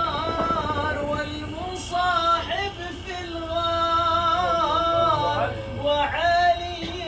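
A single voice chanting sholawat, Islamic devotional singing, in long held notes that bend and ornament up and down between short breaths.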